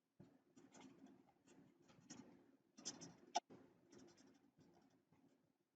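Faint scratching of writing strokes, irregular and soft, with one sharper click a little past halfway.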